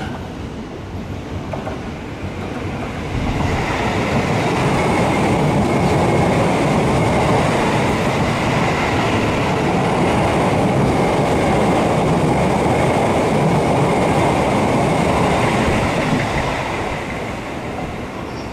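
Electric commuter train running past close by, with steady wheel and rail noise. The sound swells about three seconds in and fades near the end.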